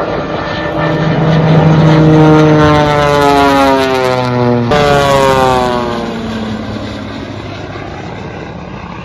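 Radial-engined aerobatic biplane flying by low under power, its engine and propeller tone falling in pitch as it passes. The pitch jumps back up about halfway through, falls again, and the sound fades as the plane goes away.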